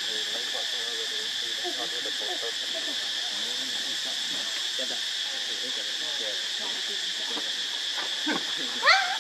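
Forest insect chorus, a steady high-pitched drone, with faint wavering calls beneath it. Near the end a short, sharply rising squeal stands out as the loudest sound.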